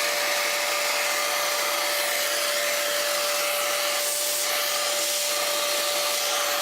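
Vacuum cleaner running steadily: an even rushing hiss with a constant whine through it.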